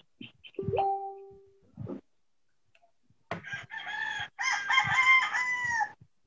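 A rooster crowing one long, wavering cock-a-doodle-doo in the second half, heard over a video call. About a second in there is a short steady tone.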